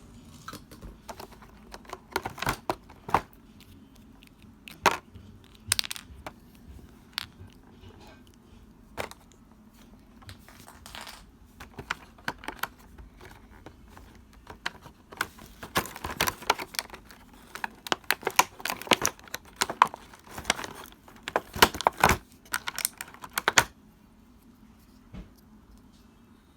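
Hands handling the pieces and packaging of a plastic toy airport playset: irregular clicks, taps and rustling. It is busiest in the second half and dies away a couple of seconds before the end.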